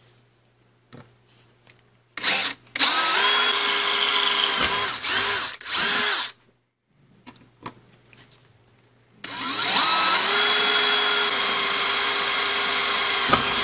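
A cordless drill boring holes through a wiper-motor mounting bracket and an aluminum adapter plate. There is a short blip of the trigger about two seconds in, then a long run with a few dips in speed. After a pause, a second long run starts and carries on to the end. The motor winds up in pitch at the start of each run.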